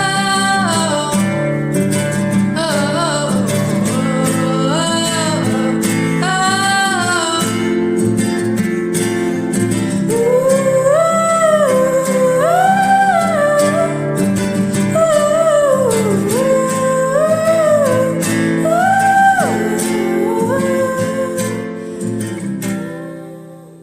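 A singer holding long melodic notes over acoustic guitar chords in a gentle song, the music fading out near the end.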